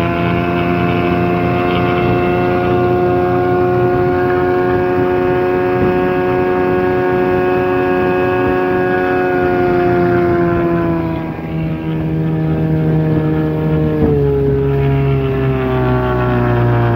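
1987 Evinrude 8 hp two-stroke twin-cylinder outboard running at full throttle, a steady pitched drone. About ten seconds in its pitch sags a little, and at about fourteen seconds a sharp knock comes with a drop in pitch that then climbs back up.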